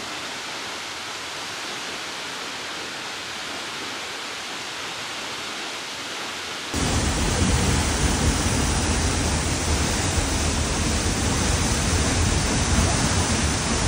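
A waterfall's steady rush of falling water. About seven seconds in it jumps louder, with much more deep rumble, as if right up close under the falls.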